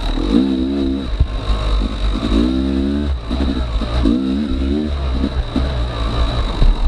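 Yamaha YZ250X two-stroke single-cylinder dirt bike engine revving in short throttle bursts every second or two, its pitch rising on each burst and dropping back between them.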